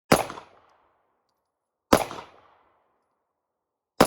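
Three single shots from a 9mm Glock micro pistol, evenly spaced about two seconds apart, each a sharp crack with a short ring-out.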